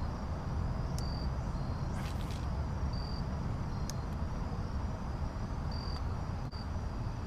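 Insects chirping in short high notes over a steady low outdoor rumble, with a few sharp clicks.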